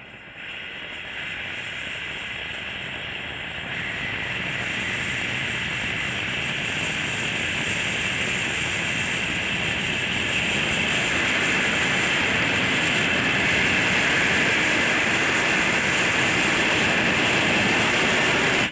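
A butane and compressed-air swirl-injector burner firing inside a quartz tube: a steady rushing hiss of gas jets and swirling flame. It gets louder in steps in the first few seconds, then stops abruptly at the end.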